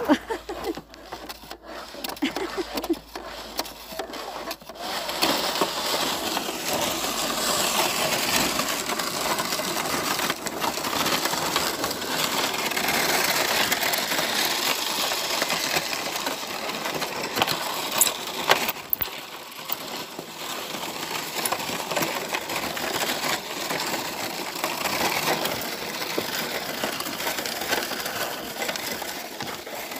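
Footsteps crunching on packed snow, a continuous run of crunches and scuffs from walkers, with a few sharper clicks past the middle.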